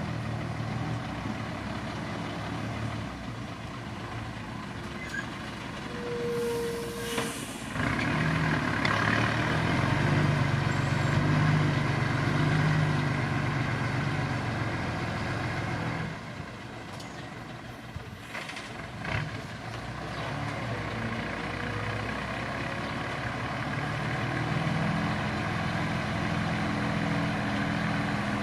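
Heavy diesel engines of road-construction vehicles running steadily, louder for several seconds from about 8 s in. Two short bursts of hiss come about 6 s in and again about 18 s in.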